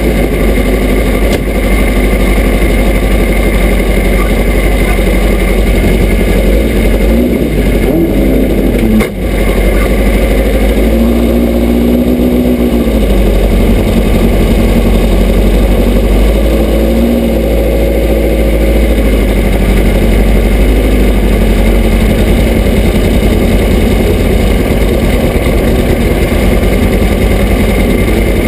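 Volkswagen drag car's air-cooled flat-four engine running at idle, heard from inside the cockpit, with a couple of short rises and falls in pitch about halfway through.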